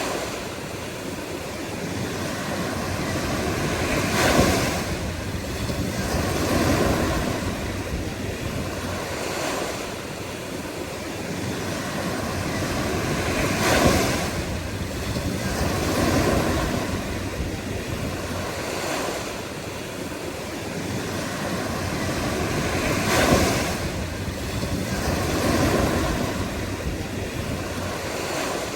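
Ocean waves breaking and washing in, the surf rising to a sharp crash about every nine to ten seconds, each followed a couple of seconds later by a softer swell.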